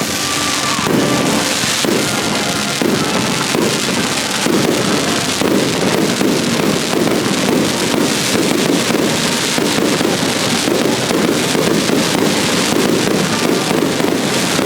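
Fireworks going off, with a dense run of rapid pops and crackles over a steady rumbling haze.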